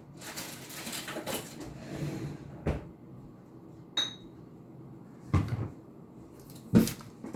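Dishes and utensils being handled: rustling, then three separate sharp knocks and one short ringing clink, as of cutlery or glass.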